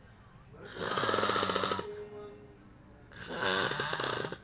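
A man snoring in his sleep: two long, fluttering snores, one starting about a second in and one near the end, with a quieter breath between them.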